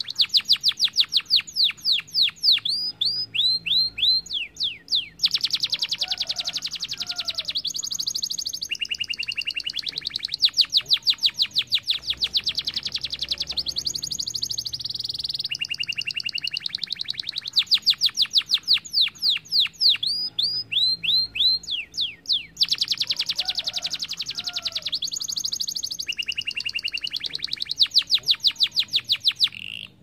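Domestic canary singing a long, unbroken song of fast trills and rolls, broken by runs of quick downward-sweeping notes; the same sequence of phrases comes round again about halfway through.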